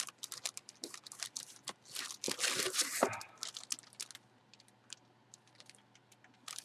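Plastic packaging crinkling and rustling as a jersey is handled and pulled from its bag, with scattered small crackles and a denser rustle about two to three seconds in.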